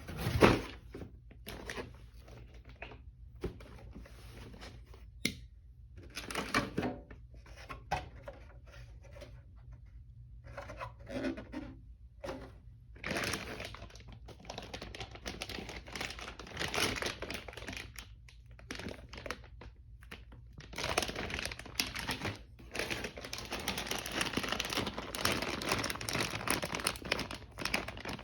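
Packaging being handled and opened: plastic and paper crinkling and tearing in irregular bursts, with a few knocks.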